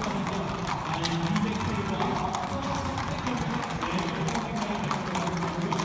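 Several walking horses' hooves clip-clopping irregularly on paved ground, over a background of voices and music.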